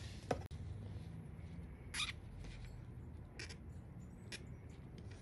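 Faint clicks and scrapes of fuel injectors and a metal fuel rail being handled as the injectors are pushed into the rail, over a low steady hum. The sharpest scrape comes about two seconds in, with a few lighter clicks after it.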